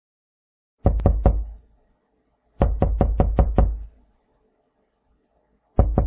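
Knocking on a door in three rapid series: three knocks about a second in, a run of six about two and a half seconds in, and another run starting near the end.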